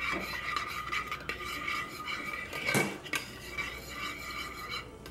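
A utensil stirring a thick, creamy sauce in a slow cooker's crock, scraping and clinking against the pot, with one louder knock nearly three seconds in.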